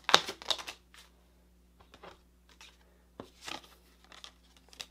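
Tarot cards being handled: a quick flurry of card flicks and slides at the start, the loudest, then a few softer card snaps and slides as cards are drawn from the deck and laid down on a wooden table.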